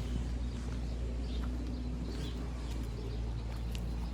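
Outdoor ambience: a steady low rumble, with faint, scattered bird chirps and small clicks.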